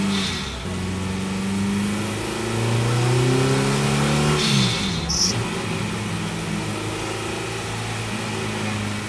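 Honda Integra DC2's B20B four-cylinder VTEC engine revving up under acceleration, its pitch climbing for about three seconds. The pitch then drops sharply as the throttle closes, and the engine settles into a steadier, lower note as the car rolls on.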